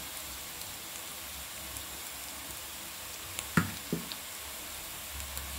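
Chopped onions, garlic and curry leaves frying in oil in a pan: a steady, gentle sizzle with scattered small crackles and two brief louder pops a little past halfway.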